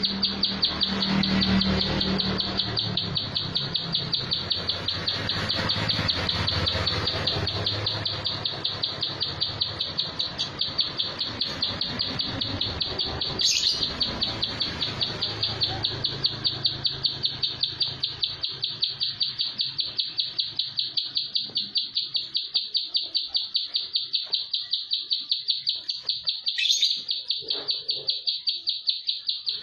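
A caged plain prinia (prenjak sawah) calling in a long, fast, steady run of high, evenly repeated notes. There are two short sharp knocks, one about halfway and one near the end.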